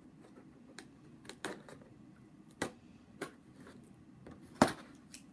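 A cardboard box being handled and opened: a scattering of sharp clicks and taps, about seven, the loudest a little before the end.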